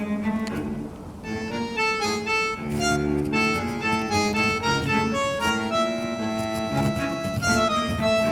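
Background music: a gentle instrumental tune led by an accordion-like reed instrument, with notes changing every fraction of a second over sustained accompaniment.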